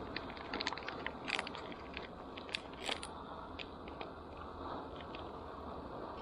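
Paper coffee bag crinkling as it is handled and folded closed by hand: a string of short sharp crackles, thickest in the first half and sparser toward the end.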